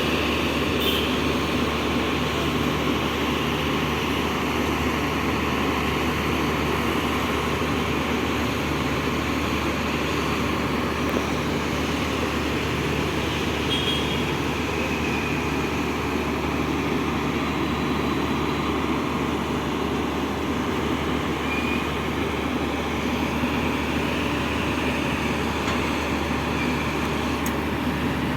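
Steady running drone of heavy machinery, with a low hum and a thin steady whine, unchanging throughout.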